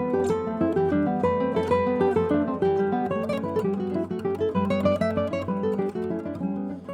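Classical guitar playing a quick succession of plucked notes.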